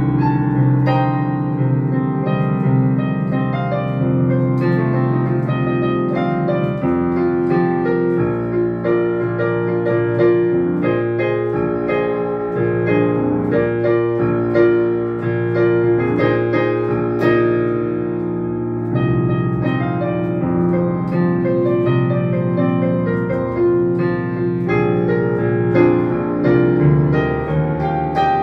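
Digital piano played with both hands: a continuous instrumental flow of chords and melody, without singing.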